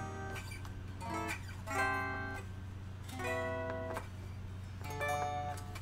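Unplugged Epiphone Wilshire P90 Reissue electric guitar picked up the neck fret by fret, four separate notes or chords ringing out about a second apart, as the frets are checked for string buzz.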